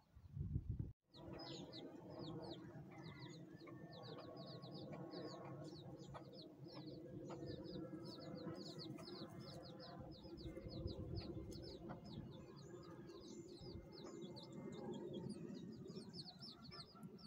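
Chicks peeping rapidly and continuously, about five short high cheeps a second, with a mother hen's low clucking faintly beneath.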